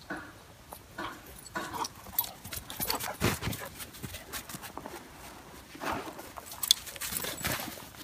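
A Newfoundland and Airedale terriers playing together: an irregular run of scuffling paws and bodies with short dog noises, in scattered bursts.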